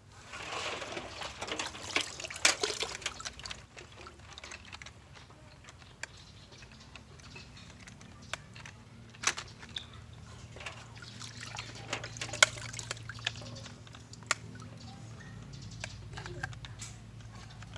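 Small hard toy cars clicking and rattling as they are handled, with a dense clatter in the first few seconds and scattered sharp clicks after, over a low steady hum.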